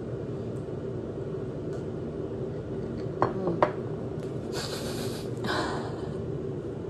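A person breathing hard through the mouth against the burn of very spicy noodles. Two faint clicks come about three seconds in, then two breathy hisses near the middle, over a steady background hum.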